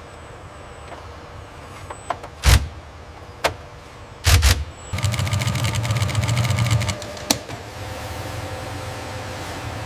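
Assembly-line workshop sounds: a few sharp metallic knocks, then a power tool runs with a buzzing rattle for about two seconds, followed by one more knock and a steady machine hum.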